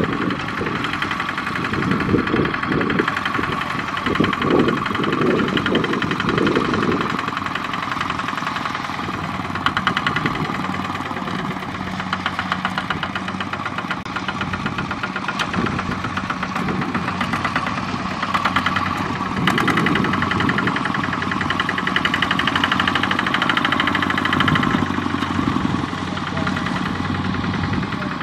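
Single-cylinder diesel engine of a two-wheel walking tractor running under load with a fast, even beat as it pulls a loaded trailer through a muddy rice field, heavier and lower in the first few seconds.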